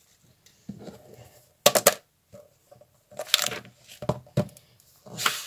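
Paper handling as a notebook is opened and its pages are turned: rustling with several short, sharp flaps and knocks, the loudest about two seconds in.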